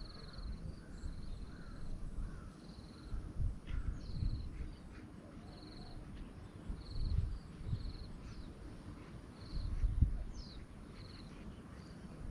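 Forest ambience: a high, buzzy chirp repeated about once a second, with a few fainter calls and scattered low thumps.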